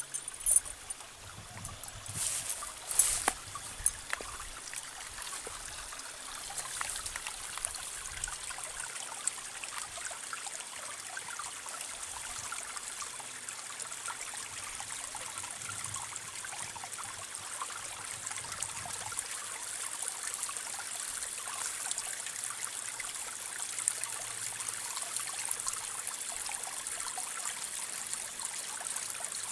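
Water trickling steadily in a concrete irrigation ditch. A few sharp knocks sound in the first four seconds, the loudest about three seconds in.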